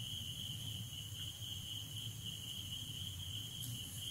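Faint background: a steady high-pitched tone, with a low hum beneath it.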